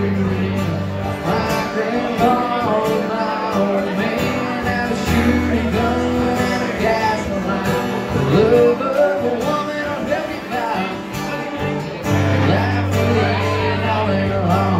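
Male singer-songwriter singing an original song live, accompanying himself on acoustic guitar.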